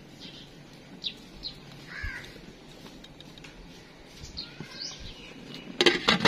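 Birds chirping now and then, short high calls scattered through. Near the end a glass lid clatters down onto the metal kadai, the loudest sound.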